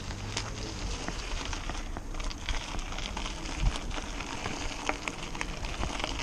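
Bicycle tyres rolling over loose gravel, a continuous crunch with many small crackling clicks of stones.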